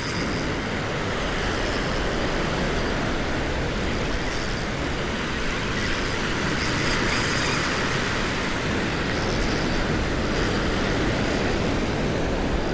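Steady rushing noise of wind and breaking surf on an open beach, with no single event standing out.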